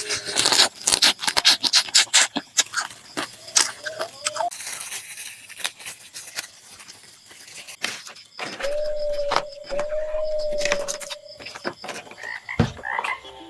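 Raw crab shells cracking and crunching as they are bitten, chewed and pulled apart by hand, a rapid run of sharp snaps and clicks in the first few seconds. Later a single steady tone is held for nearly three seconds, with a brief break in it.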